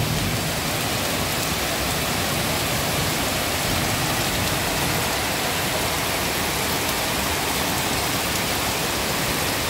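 Heavy downpour: a steady, even hiss of rain falling on a wet paved street and on tree leaves.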